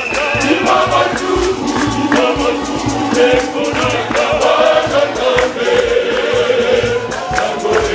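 Church choir singing a gospel song together, led by a man gesturing in front of them, with hand claps keeping the beat.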